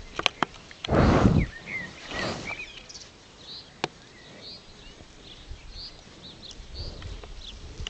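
A horse snorts, a loud half-second blow through the nostrils about a second in and a softer one a second later, a sign of contentment while being scratched. Small birds chirp through the rest, with a few sharp clicks.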